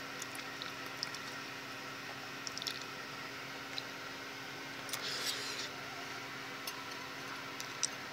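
Metal fork clicking and scraping against a bowl of food while eating: a few short, sharp clicks spread out, with a longer, noisier scrape about five seconds in. A steady low hum underneath.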